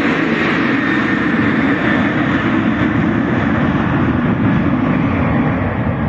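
Jet airliner's engines at high power: a loud, steady rush with a faint high whine, the higher part of the sound dulling over the last few seconds as the aircraft draws away.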